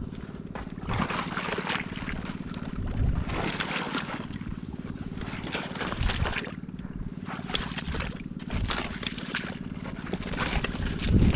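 A small motor running steadily, with water sloshing and splashing in irregular surges over it.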